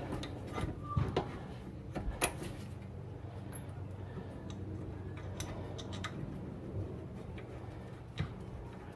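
Scattered light metallic clicks and knocks from a car's rear disc brake caliper being rotated back down over new pads and bolted up, over a steady low hum.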